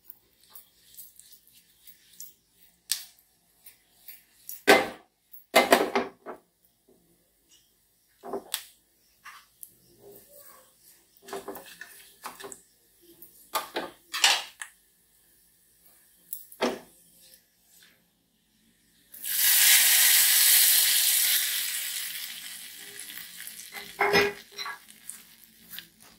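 A spoon clinks and knocks against metal pans and bowls several times, then about two-thirds of the way in a loud sizzle starts suddenly as a hot oil tempering of mustard seeds, red chillies and curry leaves hits the peanut chutney, dying away over several seconds; one more clatter near the end.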